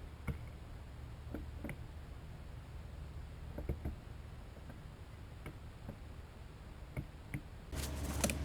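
Scattered light clicks and taps over a steady low hum; near the end a louder, steady rushing noise begins.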